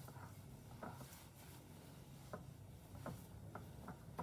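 Faint rubbing and squeezing of gloved hands working roasted-barley flour and butter together in a ceramic bowl, with a few soft clicks.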